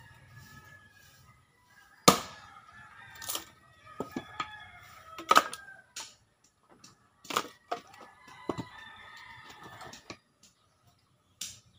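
Axe chopping firewood on a log chopping block: about six sharp, irregular strikes, the loudest about two seconds in. Chickens cluck and call between the strokes.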